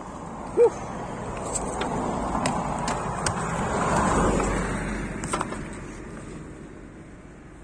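A car passing on the nearby road, its noise swelling to a peak about four seconds in and then fading away. A short, loud squeak about half a second in.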